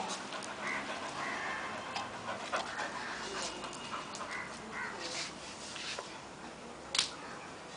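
A Labrador and a Lhasa Apso panting while they play-fight, with scattered scuffling clicks and one sharp click about seven seconds in.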